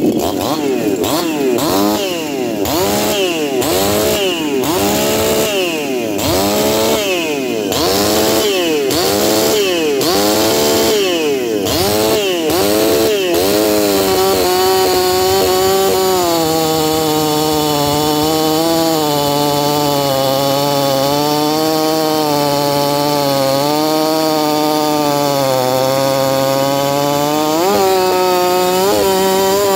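50cc two-stroke chainsaw, one of the owner's own builds, revved in about a dozen quick throttle blips, roughly one a second. It is then held at full throttle cutting through a large log, the engine note sagging slightly under load, with a brief rise in pitch near the end.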